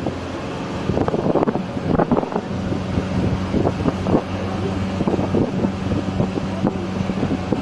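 Opel car's engine running steadily during off-road driving, with irregular gusts of wind buffeting the microphone.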